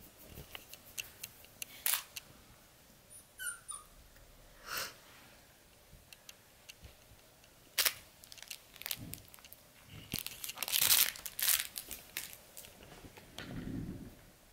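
Labradoodle puppies playing with a rope toy on fleece bedding: scattered clicks, rustling and scuffling, with one short squeak falling in pitch a few seconds in and a longer spell of rustling about two-thirds through.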